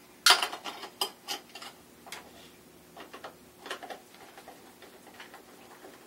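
Irregular small metallic clicks and ticks of screws being refitted with a Phillips screwdriver into a ceiling fan's metal canopy, the sharpest click about a third of a second in.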